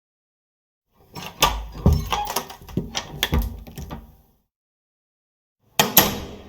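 A door being opened: its handle and latch click and rattle in a quick run of knocks for about three seconds. Near the end come two sharp clacks close together.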